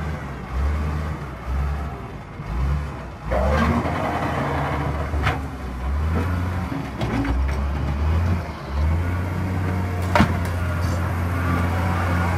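Wheel loader's diesel engine working, its pitch rising and falling over and over as it is revved and eased while the bucket pushes sand. Two sharp knocks, the louder about ten seconds in.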